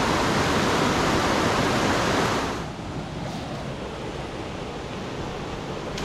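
Steady rush of river water flowing over rocks. It is loud at first and drops noticeably quieter about two and a half seconds in.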